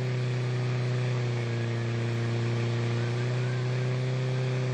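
Portable fire pump engine running steadily at high revs, pumping water through the attack hoses to the nozzles; its pitch sags slightly about halfway through.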